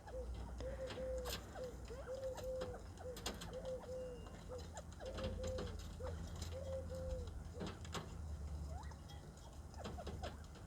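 A bird giving a run of about ten short, soft, low cooing notes, evenly spaced, which stop about seven seconds in. Scattered light clicks and taps run alongside.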